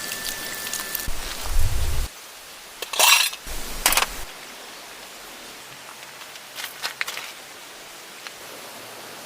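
A few clinks and knocks of objects being handled, with two louder bursts about three and four seconds in, then a quieter background with an occasional faint click.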